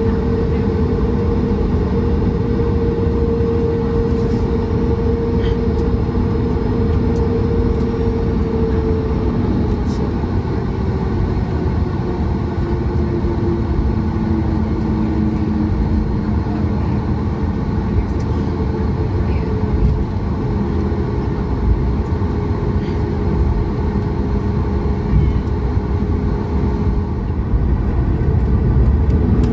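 Boeing 737 MAX 8's CFM LEAP-1B jet engines running at taxi power, heard from inside the cabin as a steady rumble with an engine hum. The hum's pitch drifts lower midway, then starts to climb near the end as the noise grows louder.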